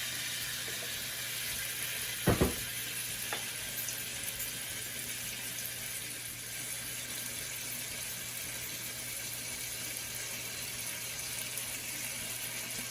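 Steady sizzling hiss of food cooking in a pan on the stove, with a single knock a little over two seconds in.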